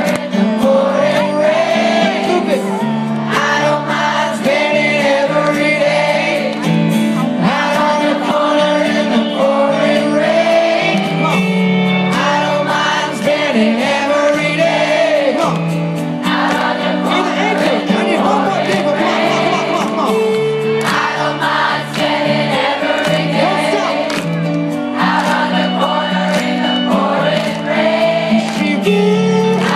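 Live pop-rock band and lead singer performing a ballad, with many voices from the crowd singing along, heard through a phone's microphone from within the audience.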